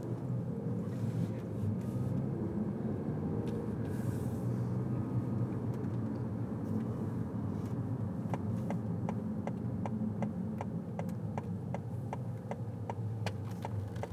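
A car driving slowly, heard from inside the cabin: a steady low rumble of engine and road noise. From about eight seconds in, a regular ticking joins it, about two to three ticks a second.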